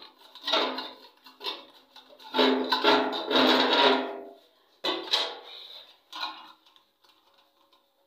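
Waste fitting being twisted by hand in the drain hole of a stainless steel sink bowl, the metal bowl rubbing and ringing in irregular bursts, the longest about two and a half seconds in.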